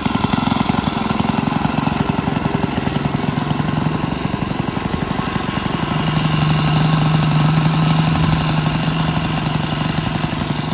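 Engine of a concrete mixer machine running with a fast, even chugging. It grows louder for a few seconds from about six seconds in.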